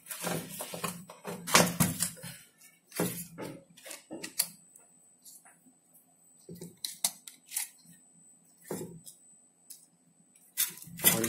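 Hands handling circuit boards and wiring in a sheet-metal LCD monitor chassis: scattered light clicks and knocks at irregular intervals.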